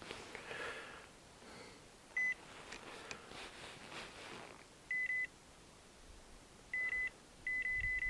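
Fish finder's fish alarm beeping at one high pitch, the sign that the echo sounder is picking up fish below the boat. Single beeps come about two seconds in and around five seconds, then the beeps follow more closely near the end.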